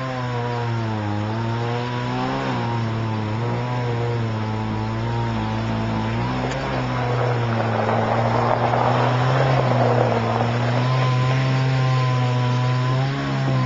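Chainsaw engine running continuously, its pitch wavering up and down, with a rougher, noisier stretch for a few seconds in the middle.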